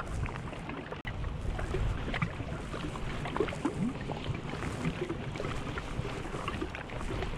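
Outdoor ambience dominated by wind rumbling on the microphone, with faint scattered ticks through it.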